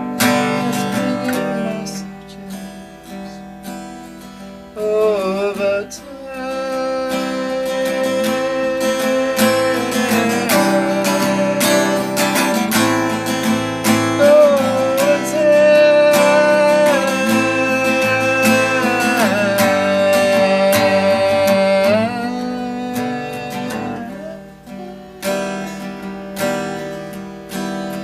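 Acoustic guitar strummed and picked, with a man's voice singing long held notes that bend in pitch through the middle, without clear words.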